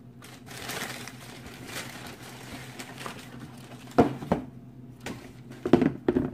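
Tissue paper rustling as sneakers are handled in a cardboard shoebox, then sharp knocks of the shoes against the box: two about four seconds in and a few more near the end as the pair is set down on it.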